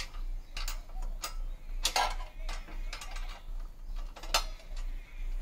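A string of irregular metallic clicks and clinks from a spanner and steel parts being handled while the guard is bolted onto a power weeder, the loudest about two seconds in and again near the end.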